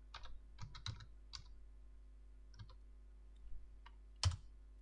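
Computer keyboard being typed on: a quick run of keystrokes in the first second and a half, a few scattered key taps after that, and one louder key strike near the end.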